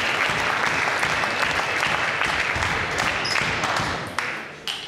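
Spectators clapping, dying away about four seconds in. Then a few sharp clicks of a table tennis ball on bats and table as the next rally starts.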